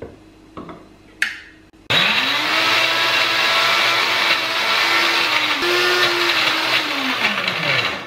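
Electric mixer grinder with a small chutney jar grinding a wet coconut and hog plum chutney to a paste. After a couple of faint knocks, the motor starts suddenly about two seconds in, runs steadily at high speed with slight shifts in pitch, then winds down with falling pitch near the end.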